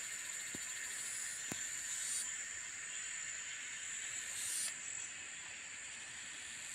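Steady high-pitched insect drone, with a shrill swell that rises and cuts off sharply near the middle.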